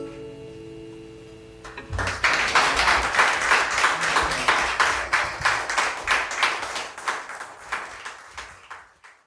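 The final acoustic guitar chord rings out and fades. About two seconds in, applause starts, then dies away near the end.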